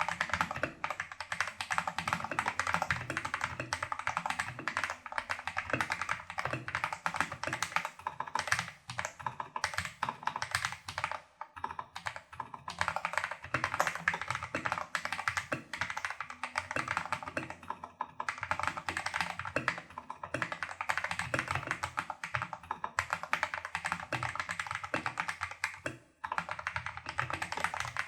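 Fast, continuous typing on a Tester68 mechanical keyboard with lubed Holy Panda-style tactile switches and XDA-profile keycaps, the PCB taped and the stabilizers greased and modded. There are a few brief pauses, one about a third of the way in and one near the end.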